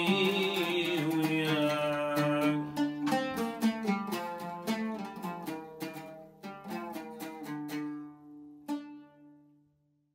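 Oud played with a plectrum under a man's held sung note, which ends about two and a half seconds in. The oud goes on alone with a run of plucked notes that slows and thins, gives one last stroke near the end, and rings out to silence as the song closes.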